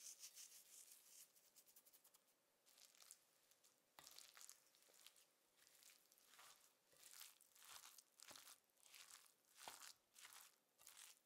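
Salt sprinkled by hand onto chopped greens in a ceramic bowl, a faint fine crackle. Then a wooden spoon stirs and mashes the wet lentil, broccoli and spinach mixture in short, soft swishes, with a couple of sharp knocks of the spoon against the bowl.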